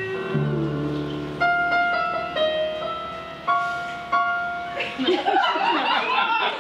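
Keyboard piano playing the song's closing notes: a low bass note, then a few separate struck chords that ring and fade. About five seconds in, audience voices break out in cheering and laughter.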